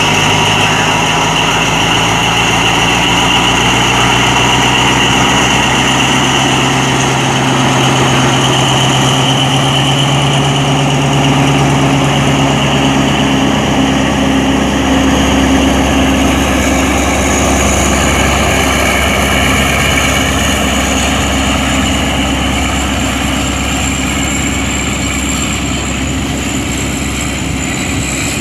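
Diesel-electric locomotive engine running steadily, its engine note changing about halfway through.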